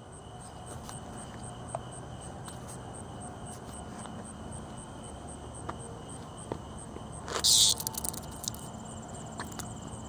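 Night insects chirping steadily in high, even pulses, about two to three a second. About seven seconds in comes a loud, short, high buzz that fits a cicada's distress buzz.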